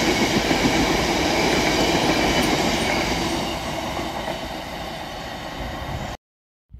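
A freight train's covered hopper wagons roll past on the track, with a steady rumble of wheels on rail and a faint high whine over it. The sound fades as the last wagon goes by and the train draws away, then cuts off abruptly near the end.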